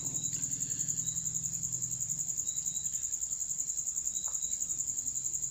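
Cricket chirping: a steady high-pitched trill pulsing fast and evenly.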